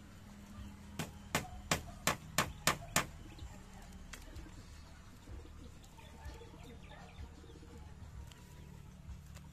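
A quick run of seven sharp knocks, about three a second, starting about a second in, over a low steady hum.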